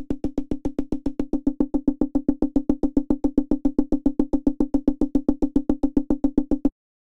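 Software synth pluck patch in Xfer Serum playing one short note repeated evenly, about seven times a second, through tube distortion and a compressor. The pattern stops near the end.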